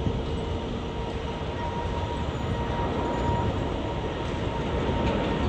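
Boeing 787 Dreamliner's twin GEnx turbofans at takeoff thrust as the jet lifts off and climbs. A steady jet roar that slowly grows louder, with a thin steady whine above it.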